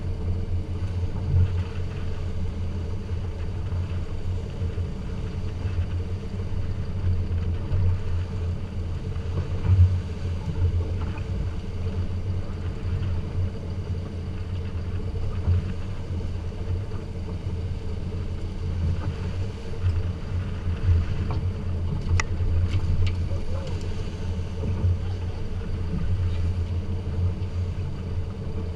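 Volvo Penta D4-225 diesel inboard running steadily while the boat trolls, a low, even drone with a steady higher hum above it and the rush of water and wind over the top. A few sharp clicks come about two-thirds of the way through.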